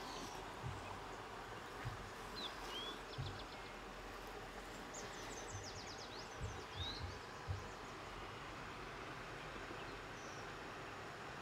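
Large knife slicing through cooked beef tenderloin and knocking dully on a wooden board, about six times over the first eight seconds, over a steady background hiss with birds chirping briefly twice.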